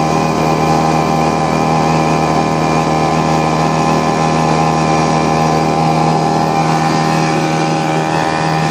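Hangkai 3.5 hp gas outboard motor running at a steady speed, driving a pedal boat under way.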